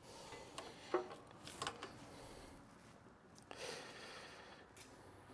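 Faint work noises: a few light clicks and knocks, and a short scraping rub about three and a half seconds in.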